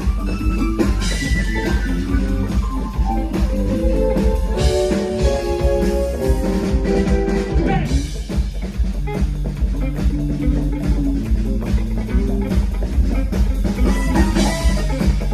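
Live band playing: electric guitar lines over bass and a drum kit keeping a steady beat.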